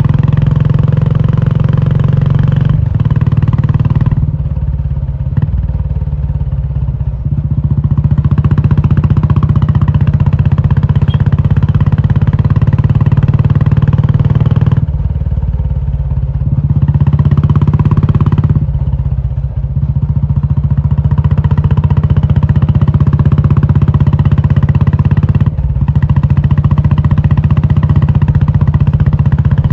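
Royal Enfield Classic 350's single-cylinder engine running loud through an aftermarket Indore exhaust, its note easing off several times and building back up.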